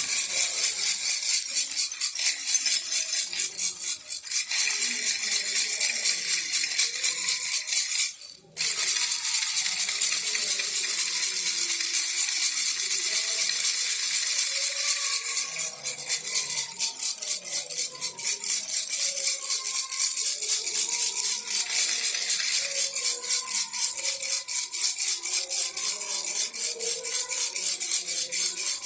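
Baby rattle shaken continuously in a fast, even rattle, with a brief pause about eight seconds in.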